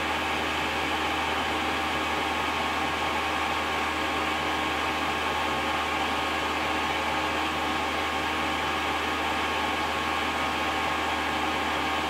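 Chinese diesel air heater running flat out during its warm-up after ignition: the blower fan, at around 4,500 rpm, and the burner make a steady, even whirring noise with a faint constant whine.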